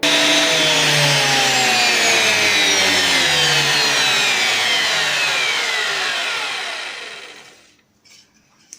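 Ryobi planer thicknesser's motor and cutterhead spinning down: a loud, noisy whine that starts abruptly, falls steadily in pitch, and dies away about seven to eight seconds in.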